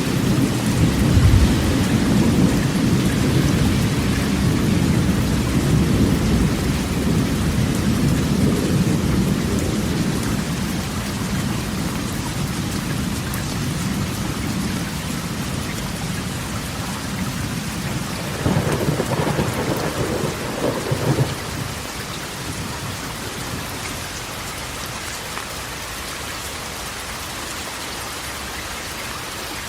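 Rain drumming on a corrugated metal roof during a thunderstorm. Thunder rumbles low and heavy at the start and slowly dies away, a shorter louder clap comes about two-thirds of the way through, and then the rain goes on steadily.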